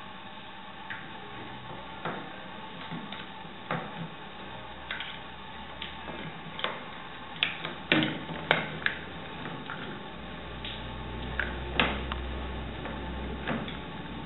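Irregular light clicks and knocks from a wooden marionette and a small hand tool being handled as the puppet is worked on, with a quick run of sharper clicks about eight seconds in. A low rumble joins about ten seconds in.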